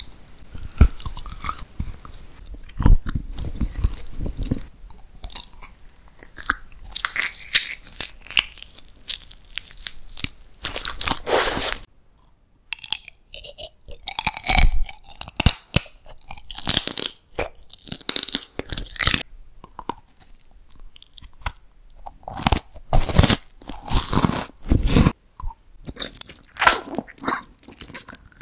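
Close-miked eating: crisp bites and crunchy chewing of sweet foods in irregular bursts, with a short pause partway through.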